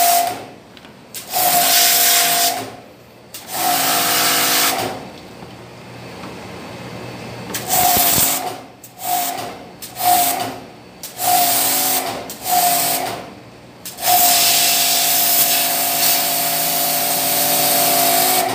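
Pressure washer spraying water onto stainless steel in repeated bursts as the trigger is pulled and released: a hiss of spray over a steady machine whine. Several short squirts in the middle, then one long spray from about two-thirds of the way in.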